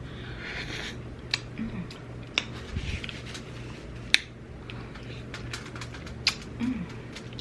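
Close-up eating sounds: scattered sharp, wet mouth clicks and smacks while chewing, with a brief low hum from the eater twice.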